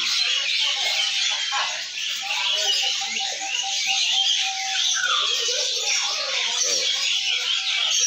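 Many caged canaries and other small songbirds chirping and twittering at once, a dense, unbroken high chatter, with faint voices underneath.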